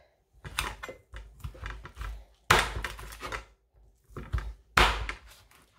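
Meat cleaver chopping through smoked chicken onto a plastic cutting board: several lighter cuts and knocks, then two loud chops, one about halfway through and one near the end.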